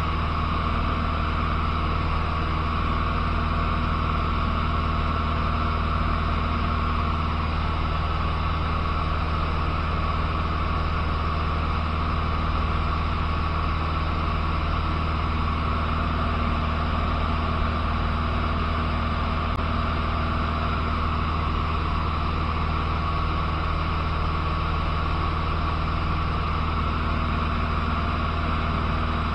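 Cessna 150's four-cylinder Continental O-200 engine and propeller droning steadily in flight, heard from inside the cockpit with a constant rush of airflow noise.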